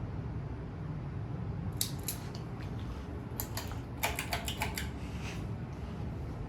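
SMC UF52 ceiling fan running with a steady low hum of motor and moving air. A few sharp clicks come about two seconds in, then a quicker run of clicks from about three and a half to five seconds.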